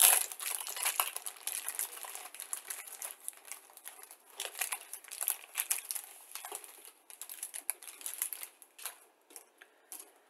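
Thin clear plastic bag crinkling and rustling as plastic model-kit sprues are pulled out of it, with small clicks of the plastic parts knocking together. It thins to a few scattered clicks near the end.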